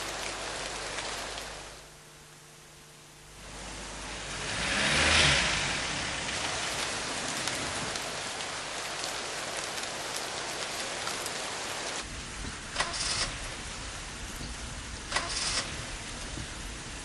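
Rain falling in a steady hiss. It dips for a moment about two seconds in, swells to a peak about five seconds in, and near the end two brief sharper bursts stand out.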